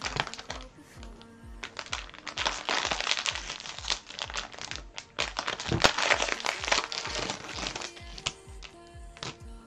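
Empty cellophane trading-card pack wrappers crinkling and crackling as they are crumpled and handled, in dense irregular bursts that are heaviest through the middle. Background music with a steady beat plays under it.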